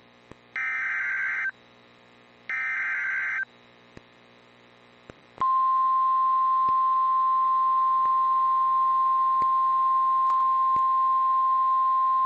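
Weather-radio alert signalling: two one-second bursts of SAME digital header data, a harsh buzzing warble, about two seconds apart. About five seconds in, the steady single-pitch 1050 Hz warning alarm tone starts and holds, the signal that a warning message follows.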